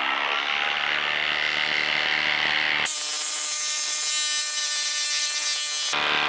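Milwaukee M18 Fuel impact driver hammering a 6-inch lag bolt into a log, its impact mechanism rattling steadily under load. The sound turns abruptly brighter and harsher about three seconds in and switches back near the end.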